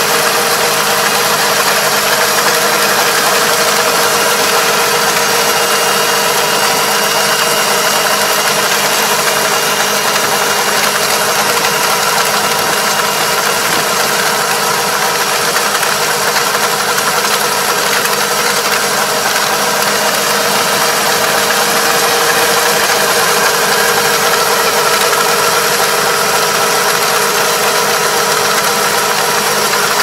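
Tractor engine running at steady revs while powering a rear-mounted disc levee coater that packs mud along a paddy bank; an even, unchanging engine hum.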